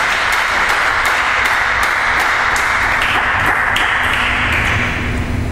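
Spectators clapping just after a point is won in a table tennis match, a steady spatter of claps with sharp clicks through it that fades near the end.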